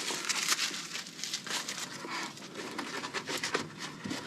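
Plastic packaging crinkling and rustling as an accessory is unwrapped by hand: a quick run of crackles that thins out in the second half.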